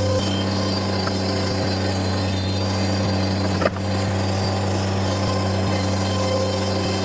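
Bobcat compact loader's diesel engine running steadily at a constant speed, with one sharp knock about three and a half seconds in.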